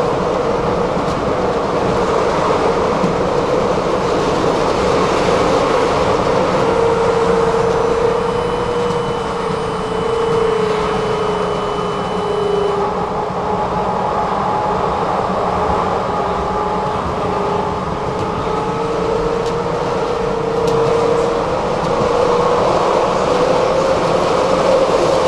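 Interior of a moving electric tram: steady rumble of wheels rolling on rail, with a mid-pitched hum that slowly wavers in pitch as the speed changes. A thin high whine sounds for about four seconds near the middle.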